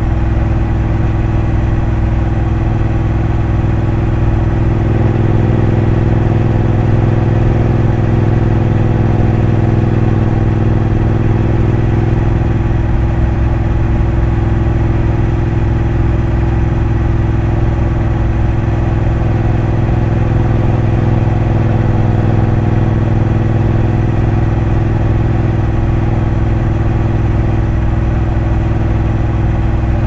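Triumph Bonneville Bobber's 1200 cc parallel-twin engine running steadily while the motorcycle cruises, its pitch holding nearly even, with a slight swell in the middle.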